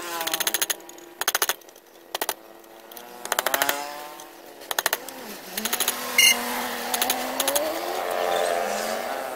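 Bursts of rapid clicking and scraping as a pointed metal tool chips at the resin potting of a motorbike ignition coil held in a steel bench vise, with one ringing metal clink about six seconds in. Under it an engine hums, rising and falling in pitch.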